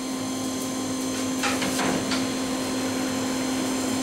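A blower running steadily with a constant hum, and three short taps of a hammer on the anvil about a second and a half to two seconds in.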